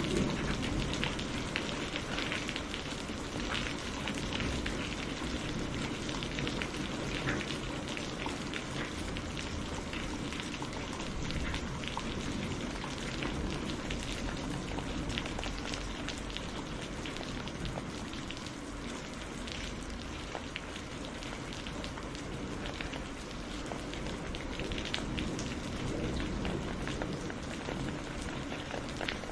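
Steady rain falling, with a dense patter of individual drops striking a surface over a continuous hiss.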